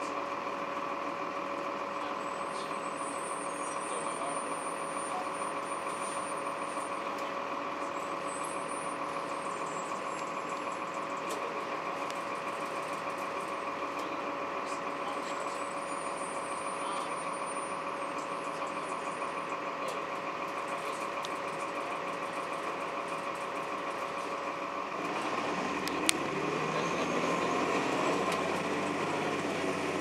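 Inside a 2002 Blue Bird CS transit bus, its Cummins ISC inline-six turbodiesel and Allison automatic drivetrain hum steadily with a constant whine. About 25 seconds in, the engine grows louder and rises slowly in pitch as the bus accelerates, and there is a single sharp knock about a second later.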